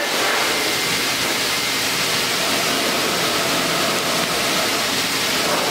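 Single-motor high-velocity pet dryer (Metro Air Force Quick Draw) running on high: a steady, loud rush of unheated air that blows out and dries a Pomeranian's undercoat.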